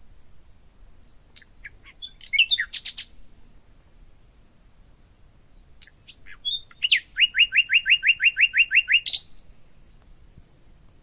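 Songbird singing: a short burst of chirps about two seconds in, then a fast trill of about a dozen repeated notes lasting some two seconds and ending in a brief higher flourish, with thin high whistles in between.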